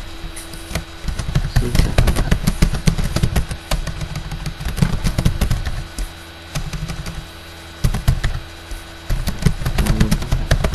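Computer keyboard typing: irregular runs of sharp key clicks with dull thumps under them.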